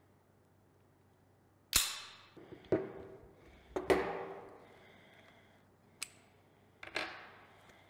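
Sharp metallic clicks and clacks of a TT-33 pistol being handled for field-stripping: about five separate strokes, the first and loudest about two seconds in, each with a short ring.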